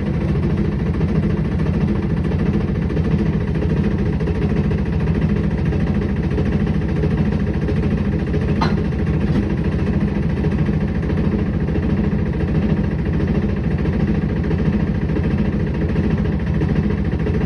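Steady low mechanical hum of a running motor with vibration. A faint brief tone rises above it about halfway through.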